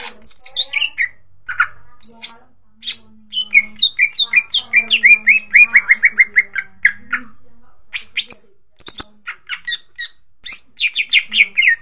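Green leafbird (cucak ijo) singing a loud, varied song of sharp chirps and whistles. In the middle it gives a fast run of repeated falling notes, about five a second, and near the end another quick run.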